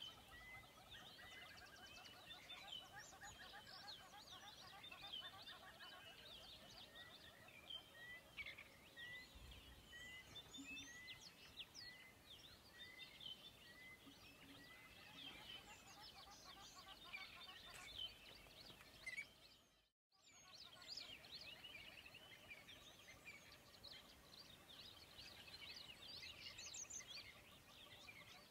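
Faint chorus of many small birds chirping and singing. One bird repeats a short note a little more than once a second through the first half. The sound cuts out briefly about two-thirds of the way in.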